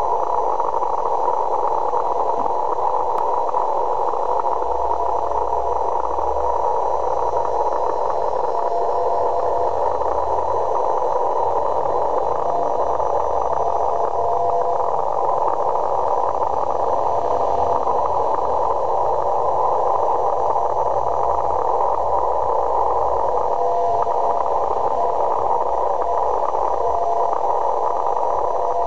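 Audio from a longwave radio receiver tuned to the 137 kHz LF band: steady hiss and static squeezed into a narrow band, with short steady beeps at one pitch coming and going.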